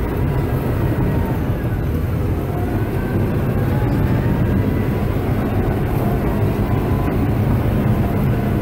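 Bulldozer's diesel engine running steadily under load, heard from inside the cab as a loud, deep drone, with a faint whine gliding up and down above it.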